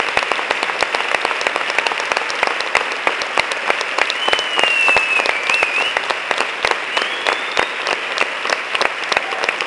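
Large theatre audience applauding steadily, a dense continuous clapping. About halfway through, a high wavering whistle rises above the clapping twice.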